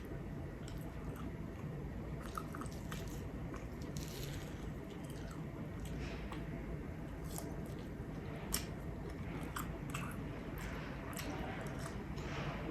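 A person chewing mouthfuls of chicken and broccoli casserole, with scattered small mouth clicks and soft crunches.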